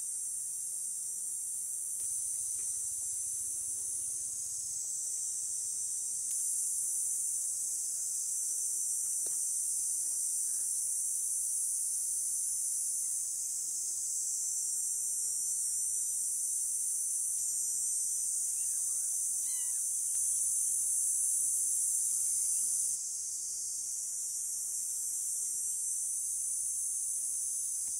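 Steady high-pitched chorus of forest insects, shifting up and down in loudness at a few points.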